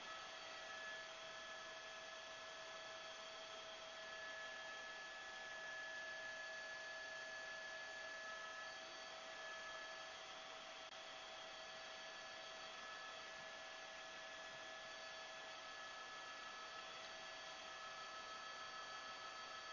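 Faint electrical hum and hiss: several thin, steady high tones over an even hiss, with no change.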